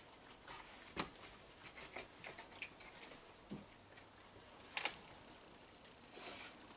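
Raccoons feeding on a wooden deck: faint scattered clicks, taps and crunches of chewing and paws on the boards, with two sharper clicks about a second and five seconds in.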